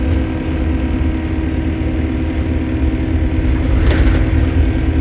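A bus's diesel engine running with a steady drone and a constant tone over the low rumble, the strange noise the uploader puts down to a leaking turbo. A short hiss comes about four seconds in.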